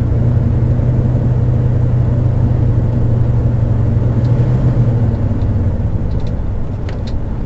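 Class A motorhome engine running under load as the coach drives off, a steady low drone heard from the driver's seat that eases off about five seconds in.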